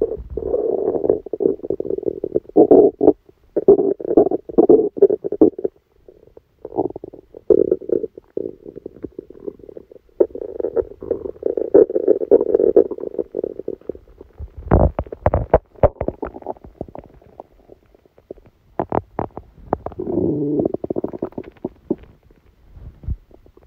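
A person's stomach growling and gurgling during a stomachache after a big meal, in long rumbling stretches broken by short pauses. A burst of sharp pops and clicks comes about two-thirds through, and again a few seconds later.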